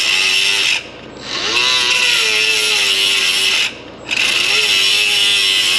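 Battery-powered power tool running in three bursts of about two seconds each, its motor whine rising at the start of each burst and sagging as it runs. The tool's battery is nearly dead.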